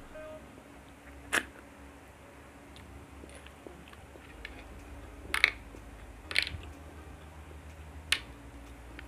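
Snail shells clicking sharply against a plate a handful of times, a second or more apart, as the snails are picked at, over a low steady hum.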